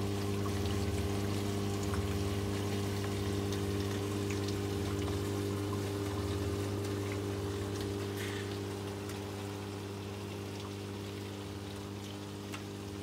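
Reef aquarium sump equipment running: a steady electric pump hum under continuous trickling and splashing water.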